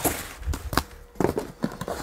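Cardboard packing being handled in a shipping box: cardboard inserts scraping, flapping and knocking against the box, with some rustling, as a series of short sharp knocks and scrapes.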